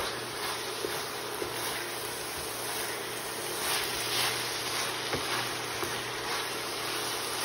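Ground beef frying with a steady sizzle in a stainless steel skillet while a wooden spatula stirs it, with a few light taps and scrapes against the pan.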